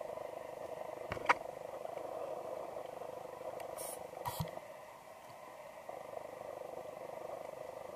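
Underwater recording through a camera housing during a scuba dive: a steady muffled noise, with a sharp click a little after a second in and two brief hisses about four seconds in.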